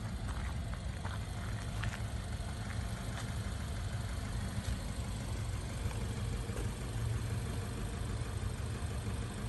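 2021 Subaru Forester Sport's 2.5-litre flat-four engine idling steadily through an aftermarket dual-chamber exhaust, a low even hum.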